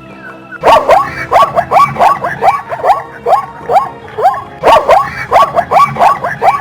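Zebra calling: a rapid run of short, high yelping barks, about three a second, in two bouts with a brief break in the middle.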